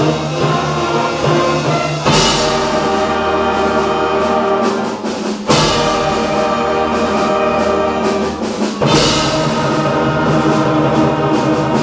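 Middle school concert band playing sustained chords, with three loud accented entries of the whole band and drums: about two seconds in, about halfway, and about nine seconds in.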